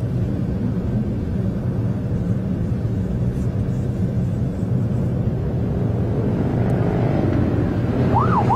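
Steady road and engine noise heard from inside a moving car's cabin. Near the end, a siren starts up with a rising and falling wail.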